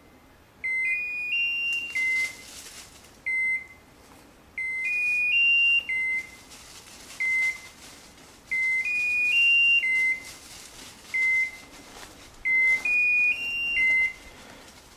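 Electronic beeper collar on a hunting dog, sounding short high beeps about every second and a half. Every third signal is a quick three-note rising tune that drops back. A fast repeat like this is how such collars signal that the dog has stopped on point.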